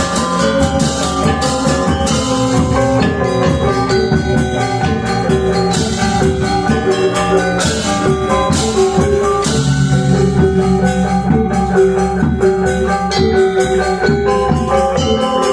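Balinese gamelan ensemble playing a tabuh pisan piece: bronze metallophones and gongs ringing in dense interlocking lines over drums, with repeated bright cymbal crashes.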